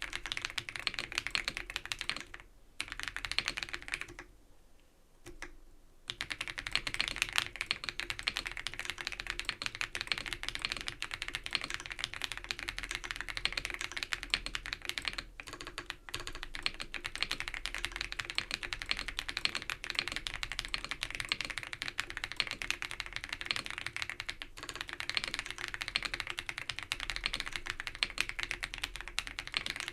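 Fast typing on an ABKO AK100 mechanical keyboard with Baby Blue non-click switches of about 45 g, a dense run of keystroke clacks. The keystrokes break off briefly about four seconds in and resume about two seconds later.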